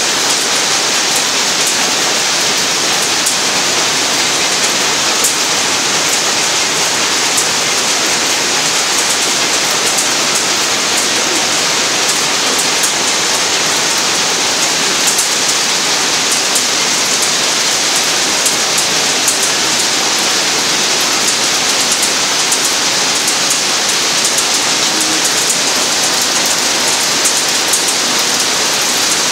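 Peanut cleaning machine running: a steady, loud rush of masses of raw peanuts rattling and sliding over sheet metal in the feed trough and round sieve bin, with faint fine ticks throughout.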